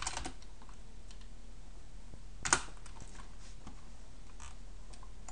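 Computer keyboard keystrokes: a few light clicks at the start, one louder key press about two and a half seconds in, then a couple of faint clicks near the end, over a faint steady low hum.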